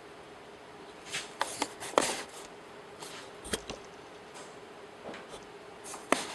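Hands handling the open upper wheel housing of a bandsaw: scattered sharp clicks and knocks, loudest about two seconds in and again near the end, over a faint steady hum.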